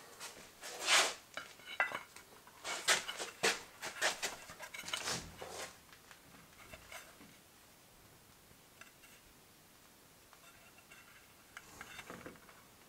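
Metallic clinks and knocks of a CVT driven clutch being handled and a rubber drive belt being fitted into its sheaves. The handling is busiest in the first six seconds, then quiets to faint rubbing, with a short burst of handling near the end.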